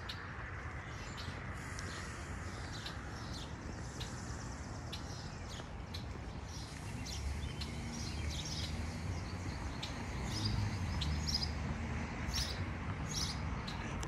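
Small songbirds chirping and calling with many short high notes, busier in the second half, over a steady outdoor hiss. A low rumble comes in about halfway through and is the loudest sound.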